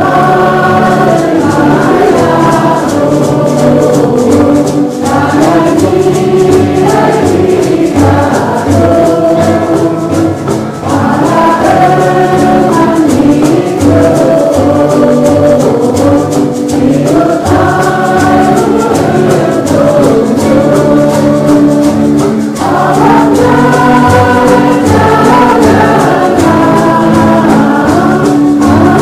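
Choral singing in a gospel or hymn style over a steady beat, played as a music track.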